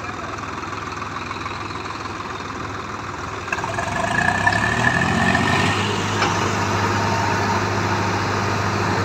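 Swaraj tractor's diesel engine running, then revved up about three and a half seconds in and held at high revs as it labours to drive out of the river.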